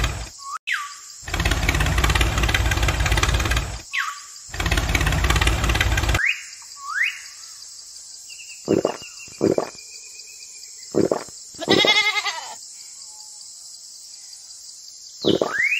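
A vehicle engine sound runs loudly, cutting out twice briefly and stopping about six seconds in. Then, over a steady high hiss, come short animal calls and bird chirps, with a wavering goat-like bleat about twelve seconds in.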